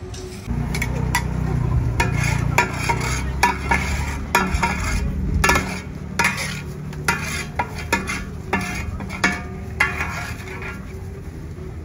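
Metal spatula scraping and knocking against a large steel wok as pad Thai noodles are stir-fried: irregular sharp scrapes and clanks. A steady low rumble starts about half a second in.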